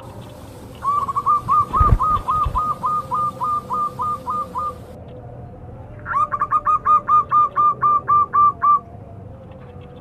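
Zebra dove (perkutut) calling: two runs of quick, evenly repeated cooing notes, each run lasting a few seconds, with a short pause between them. A few low thumps come about two seconds in.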